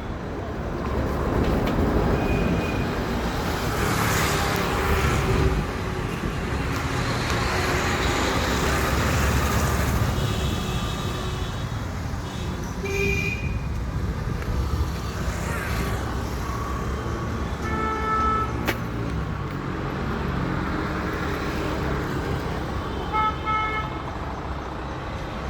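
Busy road traffic with a steady engine rumble, and vehicle horns tooting briefly several times.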